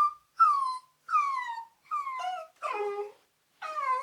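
Puppies whining and crying: a run of about six short, high cries, each sliding down in pitch, the later ones lower and fuller.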